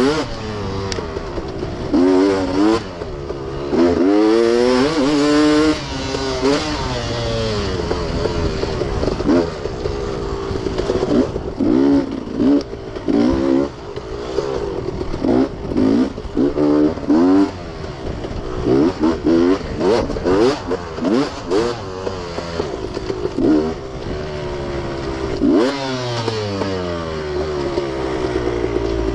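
Beta dirt bike engine heard from on the bike, revs rising and falling over and over as the throttle is opened and shut through tight trail turns. Short knocks and clatter from the bike and trail are mixed in.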